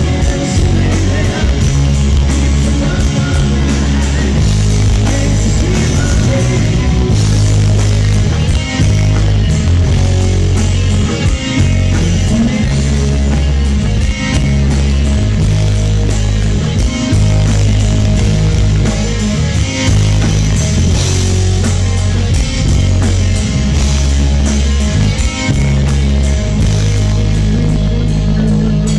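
Live rock band playing loud: electric guitars, bass and drums, with heavy bass notes.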